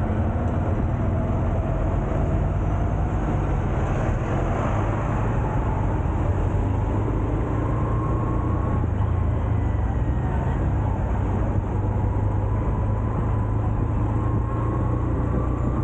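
Honda CB125F motorcycle under way: its single-cylinder engine runs steadily over a heavy, even low rumble of road noise.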